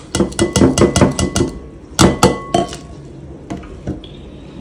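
A fork clinking quickly against a bowl as mashed banana and ground flaxseed are mixed, about seven strikes a second for the first second and a half. About two seconds in come two louder knocks that leave the bowl ringing briefly, then a few fainter taps.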